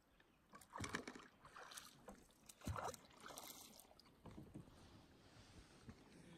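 Faint, irregular splashes and drips of kayak paddling on calm river water.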